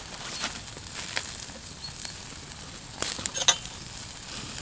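Wood campfire crackling under a wire grill grate with a beef steak sizzling on it: a steady hiss with scattered sharp pops, and a louder burst of crackles about three seconds in.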